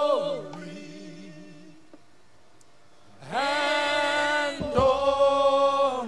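Worship chorus sung without accompaniment: a long held note on "glory" fades out just after the start, and after a pause of a couple of seconds a loud long note comes in on "and". A short low thump sounds partway through the second note.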